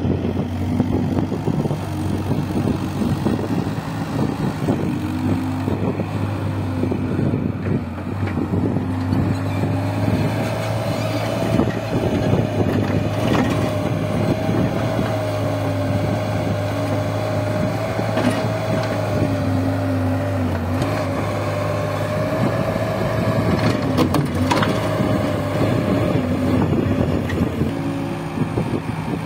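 Bobcat S130 skid-steer loader's diesel engine running under load as it digs and carries soil. A steady high whine joins in about ten seconds in and drops away near the end, with a few sharp clicks partway through.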